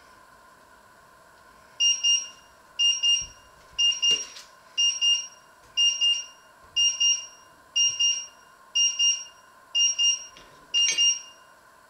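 An electronic beeper sounding a loud, high double beep about once a second, ten times in a row, then stopping.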